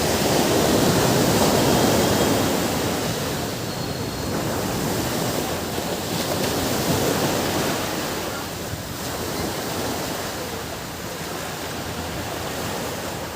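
Ocean waves breaking and washing up a beach: a rushing surge that swells over the first few seconds, a smaller surge about seven seconds in, then a steadier, softer wash.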